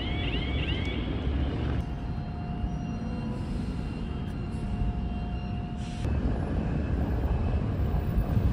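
Busy street traffic rumbling steadily. In about the first second there is a quick run of repeated chirps.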